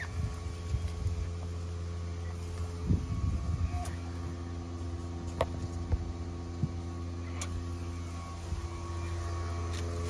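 Steady low mechanical hum, a motor or engine running, with a few short sharp clicks.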